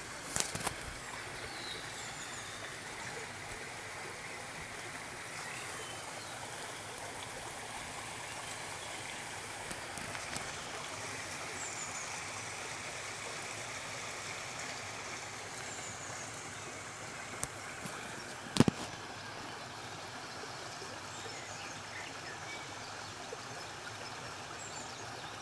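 Steady rush of running water, with a few sharp clicks just at the start and again about two-thirds of the way in.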